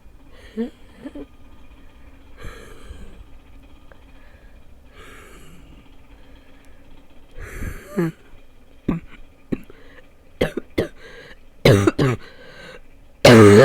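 A person's barking cough, left over from about two weeks of illness. Breaths and smaller coughs come in the first half, then sharper coughs build to a loud pair about twelve seconds in and the loudest bark right at the end.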